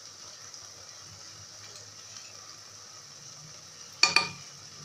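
Bulgur with tomato, onion and pepper frying gently in a pot, a steady soft sizzle. There is one short, sharp knock about four seconds in.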